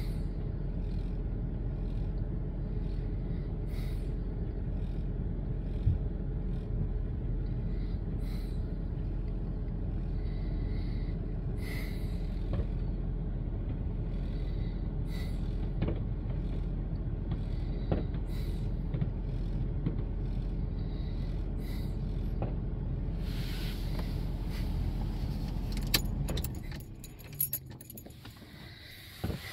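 Distant fireworks going off in scattered bangs and pops over a steady low rumble. The rumble stops abruptly near the end, followed by a short run of jingling, clicking sounds.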